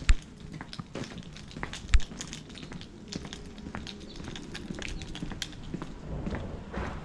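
Footsteps on an asphalt lane: a run of light clicks and scuffs, with two sharp low thumps, one right at the start and one about two seconds in.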